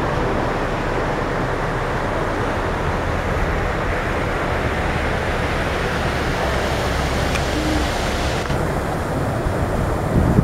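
Steady rush of ocean surf breaking on the shore, with some wind on the microphone.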